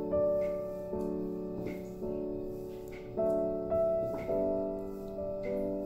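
Background piano music: held chords that change about once a second.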